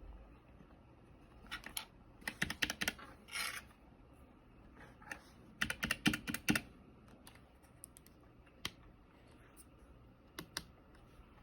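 Typing on a Keychron K1 Max low-profile mechanical keyboard: two quick bursts of key clicks, then a few single keystrokes near the end.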